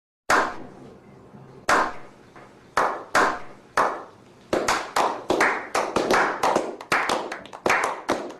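Sharp percussive hits with short fading tails, a few spaced strikes at first, then a quicker run of about three a second from about halfway.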